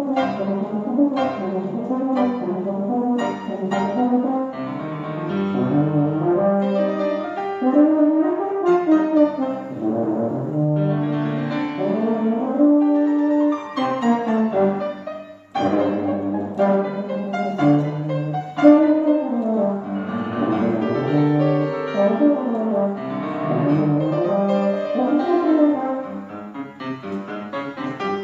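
Tuba playing a melody with grand piano accompaniment, the music pausing briefly about halfway through before going on.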